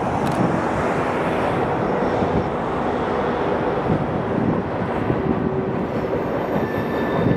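Freight train's boxcars rolling around a curve: a steady rumble of steel wheels on rail, with a faint thin squeal coming in near the end.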